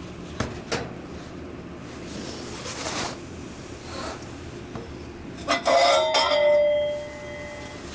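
Hard furnace-tube cover parts and a handling tool clinking together. There are two light knocks early, then a cluster of clinks about five and a half seconds in, leaving a clear glassy ringing that fades over about two seconds.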